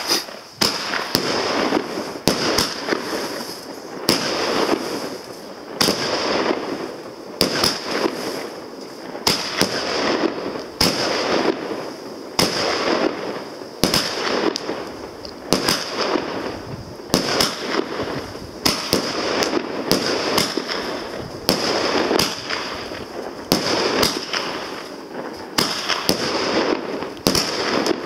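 A 25-shot, 30 mm Fun & More 'Helium' firework cake battery firing shot after shot, about one a second. Each shot is a sharp bang followed by a hissing trail of noise.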